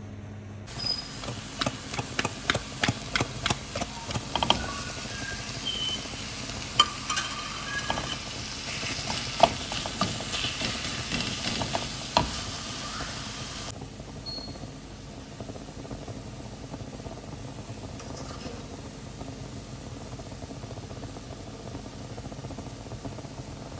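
Tuna and sautéed onions sizzling in a frying pan while a wooden spoon stirs and scrapes through them, with many sharp clicks of the spoon against the pan. The sizzle stops suddenly about 14 seconds in, leaving a fainter steady hiss.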